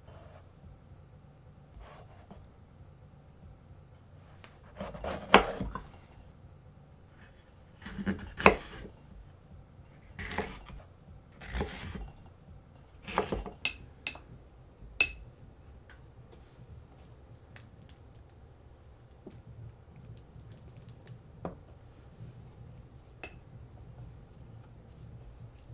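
Kitchen knife slicing through a red bell pepper on a wooden cutting board: five or six crisp cuts, each ending in a knock of the blade on the board. A few light ringing clicks follow, then only faint taps.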